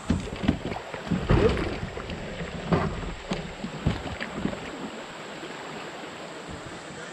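Kayak paddle strokes and hollow knocks against a plastic sit-on-top fishing kayak, with water splashing, over the steady rush of a shallow creek riffle. The knocks fall off after about four seconds, leaving the running water.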